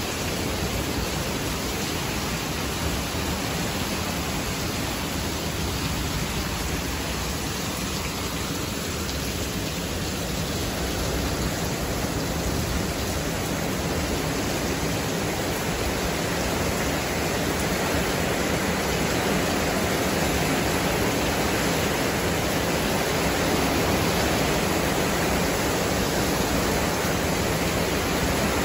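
Heavy rain pouring down in a windy thunderstorm, a steady rushing noise that grows louder in the second half.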